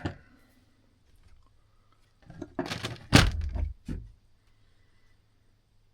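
A quick run of knocks and clatters from metal clock-movement parts being handled and set down on a bench, the loudest about three seconds in.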